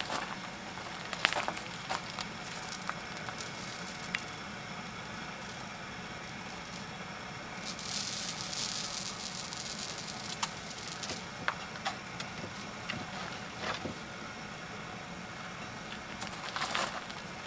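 Horse hair sizzling and crackling as it burns onto a hot, unglazed raku pot, with a louder hiss about eight seconds in that lasts some three seconds, amid scattered small clicks.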